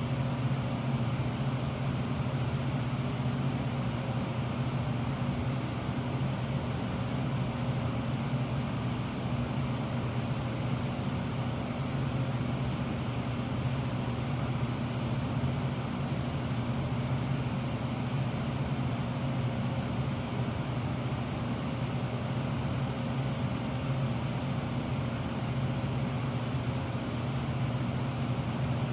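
Steady low machine-like hum with a faint higher tone held throughout, not changing in level.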